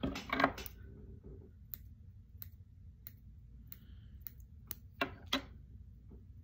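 Small fly-tying scissors and fingers working at the vise: scattered short clicks and snips, about ten in all. There is a louder cluster at the start and another about five seconds in.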